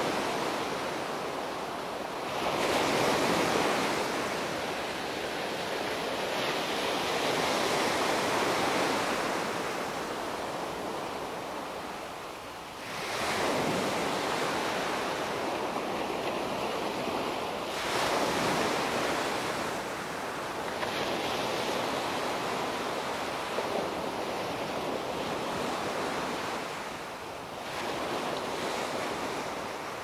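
Small sea waves breaking and washing up a sandy beach, a fresh surge of surf coming in about every five seconds and hissing back between breaks.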